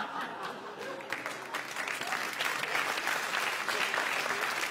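Audience applauding, many hands clapping, the clapping thickening about a second in.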